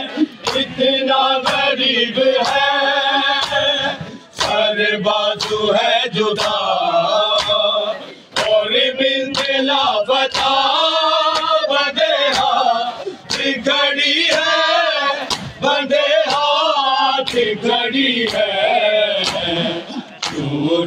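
Male voices chanting a Shia noha lament in chorus, accompanied by rhythmic matam chest-beating: sharp, even slaps about twice a second.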